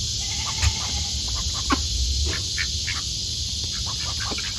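A mixed flock of domestic ducks and turkeys feeding on scattered grain: a scatter of short, soft calls and pecking clicks, irregular, over a low rumble.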